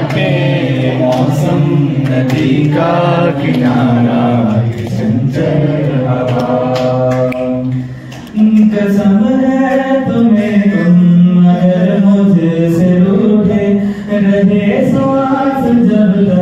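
Amplified voices singing a slow Hindi-language song into microphones, with long held notes that glide between pitches and a brief pause between phrases about halfway through.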